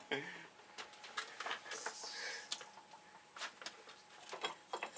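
Scattered light metallic clicks and knocks of tools and a control arm being handled on the workbench, with a short hiss about two seconds in.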